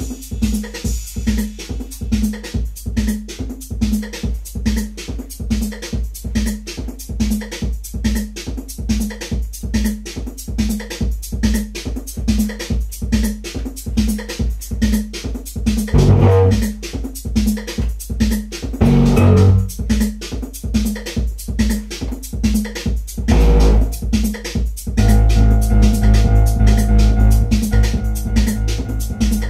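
Roland TR-808 drum machine running a steady techno beat, with Roland Jupiter-6 synthesizer parts played over it: a few short swells in the middle, then a sustained chord held through the last few seconds.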